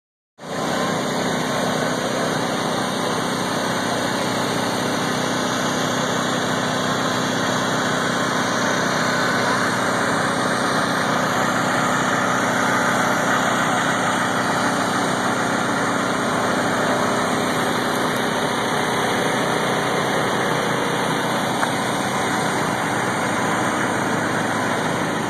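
Steady engine hum of parked food trucks running their on-board motors.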